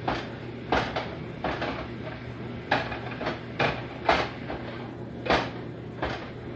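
Ground beef being broken up and stirred in a frying pan, the utensil knocking and scraping against the pan about eight times at irregular intervals, over a steady low hum.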